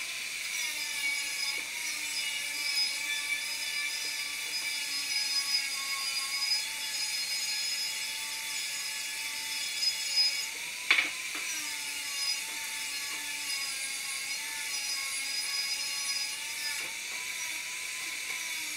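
Electric angle grinder running steadily while it is worked along a long steel rod, its whine wavering slightly as the load changes. A single sharp knock comes about eleven seconds in.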